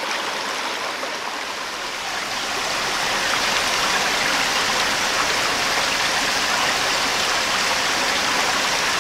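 Small rocky stream running over little cascades: a steady rush of water, getting a little louder about three seconds in.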